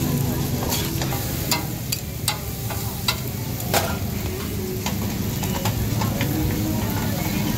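Meat frying and sizzling on a gas flat-top griddle, with sharp clicks and scrapes of the cooking utensils against the hot plate every second or so.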